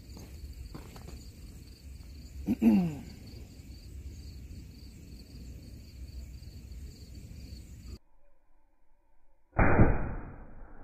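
A single shot from a big-bore Remington 700 elephant rifle firing a 500-grain bullet: one sudden, very loud blast near the end that rings on and fades.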